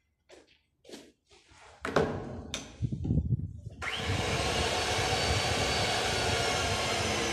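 Metal clanks and knocks as the Rothenberger pipe threading machine is worked by hand, then about four seconds in its electric motor starts with a short rising whine and runs steadily.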